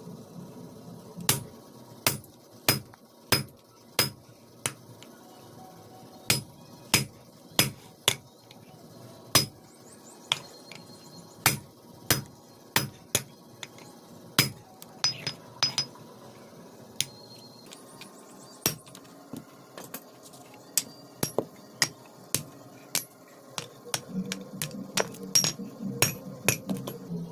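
Blacksmith's hand hammer striking iron on an anvil while forging a chisel: a series of sharp metallic blows at an uneven pace, often one or two a second with short pauses, some leaving a brief ring. A low rumble comes up near the end.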